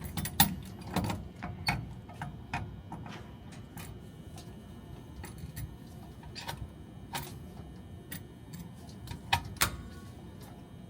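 Scattered small metallic clicks and taps as hand tools work the nut loose on a Belimo valve actuator, irregular at about one or two a second, with two louder clicks near the end. A faint steady hum of HVAC equipment lies underneath.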